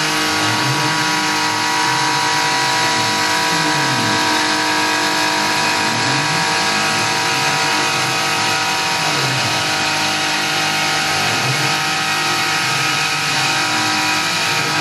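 Tormach PCNC 1100 CNC mill cutting metal with an end mill under flood coolant, following a trochoidal tool path. Steady spindle whine and cutting noise, with a low tone sweeping up and down every second or two as the tool loops.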